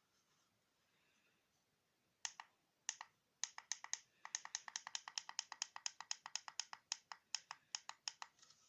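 A run of sharp clicks or taps: a few spaced ones about two seconds in, then a rapid, slightly uneven series of about five or six a second that stops near the end.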